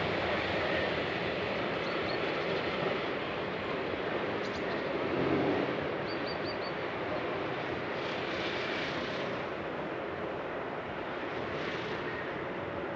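Train running past, a steady rushing noise of wheels on rail that slowly fades, with a few faint short high chirps.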